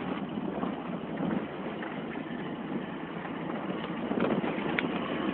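Car running and rolling slowly along a rough road, a steady engine and tyre noise heard from the car, with a short tick near the end.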